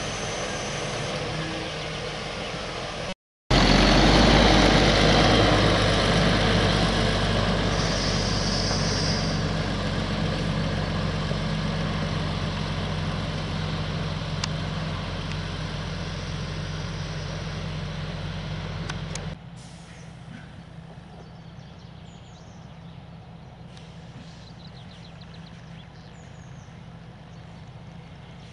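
Heavy diesel truck pulling a Wienhoff slurry tank semi-trailer, its engine running loud and then slowly fading as it moves off, with a brief air-brake hiss a few seconds in. Before it, after a short break, the Claas Xerion 4200 tractor's engine runs at work; after it, the sound drops suddenly to a quieter steady engine hum with birds chirping.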